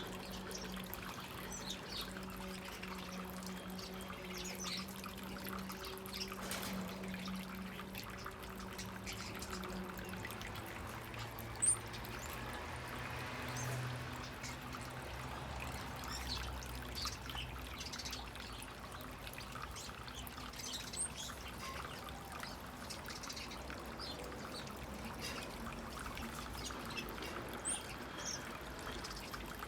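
Water pouring and trickling steadily, with small birds chirping in short high notes throughout and a few sharper chirps standing out now and then.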